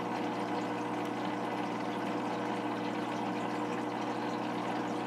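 Aquarium filter pump running: a steady electric hum with a faint, even wash of moving water.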